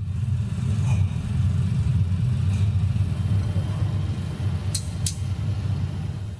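Steady low rumble of workshop machinery, with two sharp high clicks in quick succession near the end.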